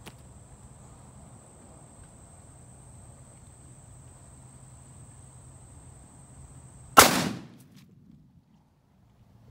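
A single rifle shot about seven seconds in, sharp and loud, with a short rumbling tail. Before it, a steady high-pitched buzz runs, and it stops at the shot.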